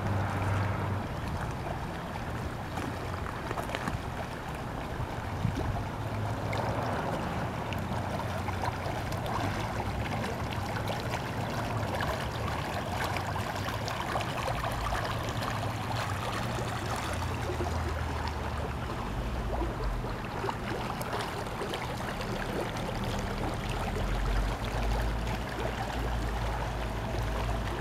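Steady rush of shallow floodwater flowing across a street and around sandbags, with wind on the microphone adding a low rumble.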